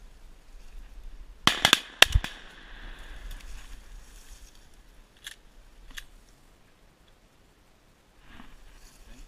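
Shotgun fired at passing ducks: a quick volley of sharp shots about a second and a half in, the loudest just after two seconds, with a short echo, then two faint clicks a few seconds later.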